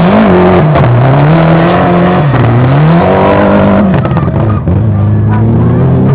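Rally car engine running hard, its pitch climbing and dropping several times as the throttle is lifted and reapplied.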